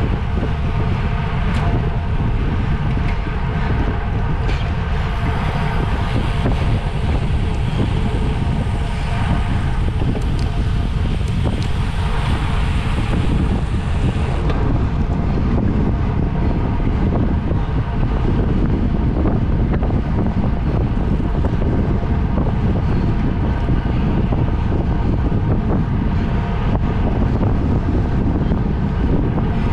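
Loud, steady wind noise buffeting the microphone, a dense rumble that does not let up.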